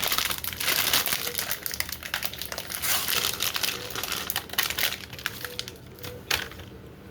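Plastic packaging crinkling as it is handled, a dense run of small crackles that eases off near the end after one sharper click.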